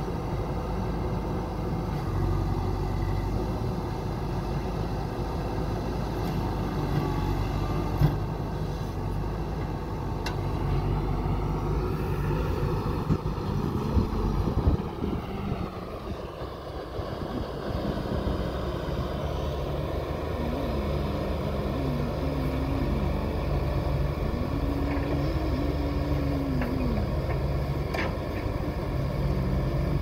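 JCB 3DX backhoe loader's diesel engine running under digging load, its pitch rising and falling several times in the second half as the hydraulics work. A sharp knock about eight seconds in and a few clunks a little past the middle.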